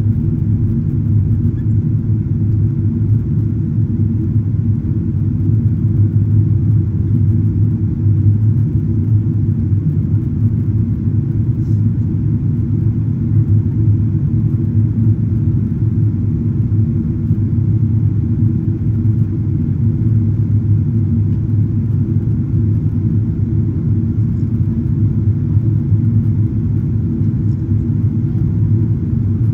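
Steady low cabin rumble inside a Boeing 777-200ER on its approach descent: engine and airflow noise heard from a window seat over the wing.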